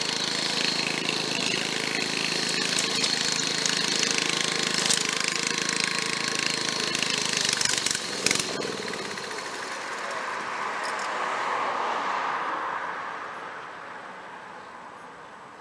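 Late-1960s Snapper rear-engine riding mower's Briggs & Stratton engine running while cutting grass. It is loud and steady for the first half, with a sharp click about eight seconds in, then fades away.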